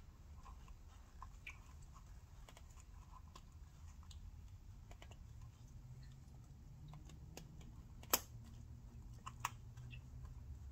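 Faint scattered clicks and rustling of hands working a motorcycle wiring connector behind the frame to plug it back in, with one sharper click about eight seconds in.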